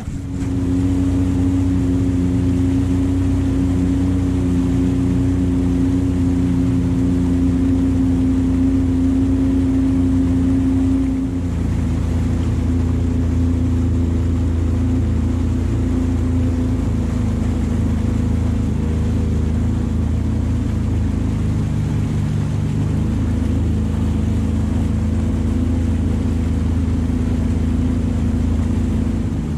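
Personal watercraft (jet ski) engine running steadily under way, with water rushing past the hull. The engine note steps down and settles about eleven seconds in.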